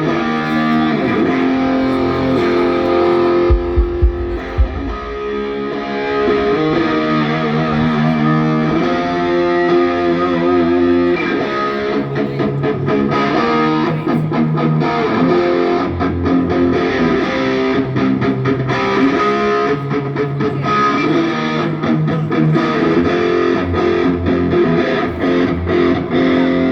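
Electric guitar played on its own through an amp with effects, ringing sustained chords that change every second or two, with a few deep low thumps about four seconds in.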